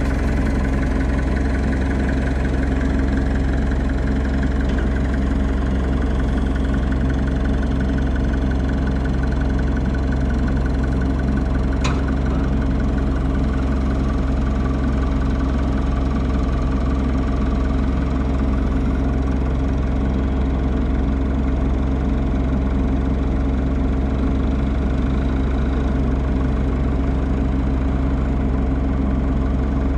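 Komatsu PC16 mini excavator's diesel engine running steadily at a constant speed, heard from the operator's seat with no revving, and one faint click about twelve seconds in.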